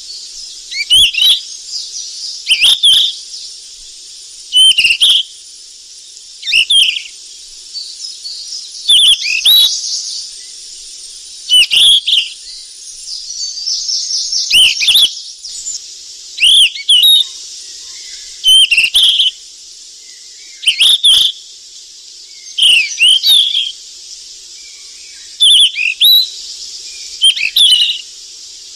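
Flycatcher song: a short phrase of quick whistled notes, repeated about every two seconds, over a steady high hiss.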